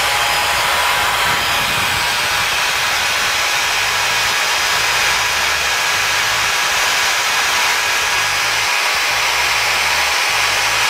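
Corded electric drill running steadily at speed, powered from the 800 W inverter's output. The inverter is carrying the load without tripping into protection now that its damaged NPN/PNP driver transistor pair has been replaced.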